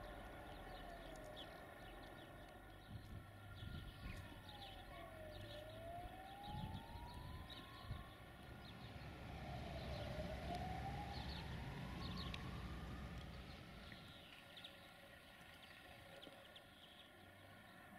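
A faint siren wailing, its pitch sliding down and then slowly back up in sweeps a few seconds long. Under it is a low rumble, and short high chirps are scattered through.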